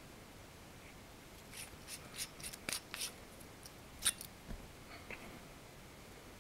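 A quick run of small, sharp clicks and crinkles from hands handling a small LED flashlight and its packaging. The clicks come close together for about two seconds, then a few scattered ones follow, the sharpest about four seconds in.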